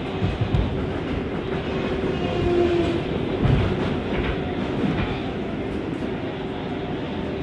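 New York City Subway R188 car running along the track, heard from inside the car: a steady rumble of wheels on rail, with a faint steady tone and occasional clacks over rail joints.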